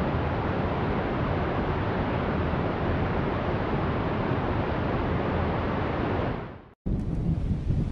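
Mountain stream rushing over rocks, a steady, even rush that fades out about six and a half seconds in. After a brief gap, a low, uneven rumble of wind on the microphone starts.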